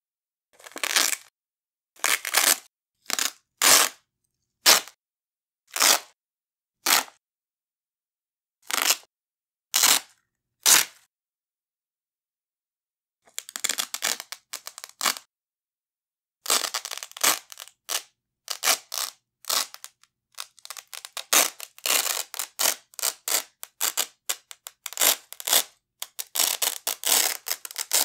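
Hook-and-loop (Velcro) straps ripped off a wide hook-and-loop strap: about ten short, separate rips in the first eleven seconds, then after a short pause, long runs of rapid crackling tearing as a strap is peeled away more slowly.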